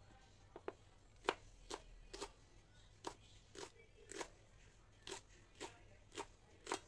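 A large kitchen knife chopping salted mustard green stalks on a cutting board, the blade knocking the board about twice a second in a steady run of short chops, with the loudest chop just over a second in.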